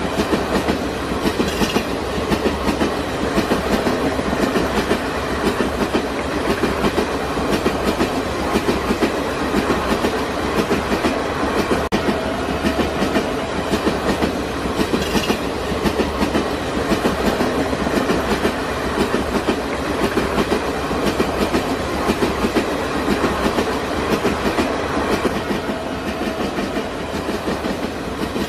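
A passenger train's coaches passing at speed, wheels clattering steadily over the rail joints in a rapid, even clickety-clack along with the rumble of the running gear.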